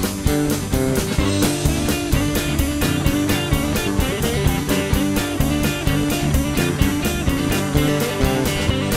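Rock music with guitar and a steady, even beat.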